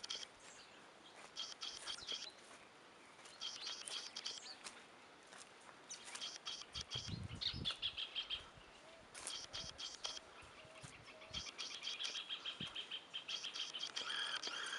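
A songbird singing a short, rapid chattering phrase high in pitch, repeated over and over about every second or two. A few low bumps from handling the camera come about halfway through.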